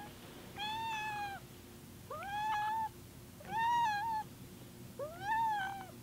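Domestic cat meowing four times, about a second and a half apart, each meow under a second long with a rising start and a slight fall at the end.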